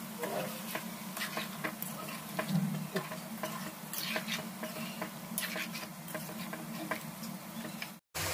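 Steel spoon stirring a wet curry in a steel kadai, with irregular clicks and scrapes of the spoon against the pan and a light sizzle of the gravy, over a steady low hum. The sound drops out briefly near the end.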